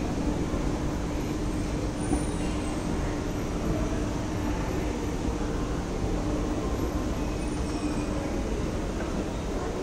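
A moving escalator running, a steady mechanical hum and rumble with a constant low tone.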